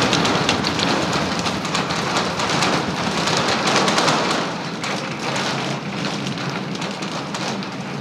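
Super Heavy booster's 33 Raptor engines firing during ascent: a dense crackling rocket rumble that eases a little about halfway through.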